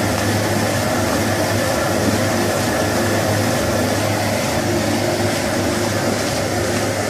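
High-speed vertical powder mixer running steadily while blending a batch of granular bentonite and fine powders, giving a constant low hum under an even hiss.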